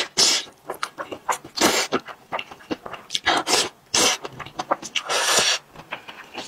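Close-up slurping of thick noodles in sauce, several loud hissy slurps in a row with wet chewing and lip smacks between them.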